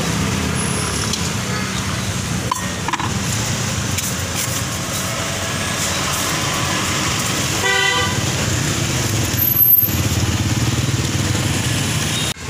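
Steady street traffic noise with motor vehicle engines running, a short horn toot about eight seconds in, and a brief bump a little later.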